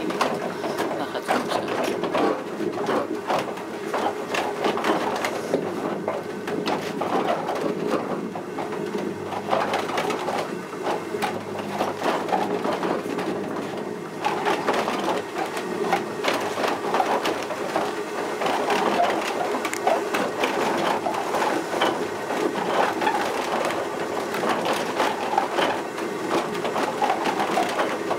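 Wooden gearing of a working Dutch windmill turning: a large wooden cog wheel meshing with the gears above the millstones, a continuous dense clatter of wooden teeth over a steady rumble.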